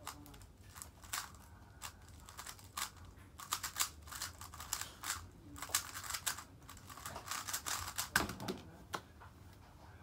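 3x3 speed cube being turned rapidly by hand, its plastic layers clicking and clacking in quick runs of turns, with a louder knock about eight seconds in.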